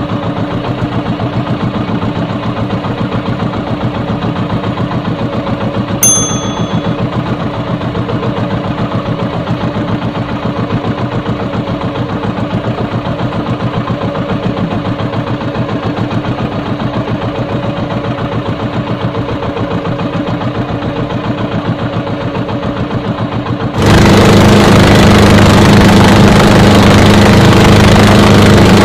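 Small engine of an outrigger fishing boat running steadily with a fast, even putter; near the end it suddenly gets much louder, with added water and wind rush, as the boat speeds up. A brief high ping sounds once, about six seconds in.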